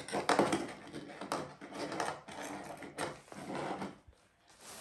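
Rustling of a cloth tote bag as small items are handled and taken out, with a few light knocks of things set down on a tabletop.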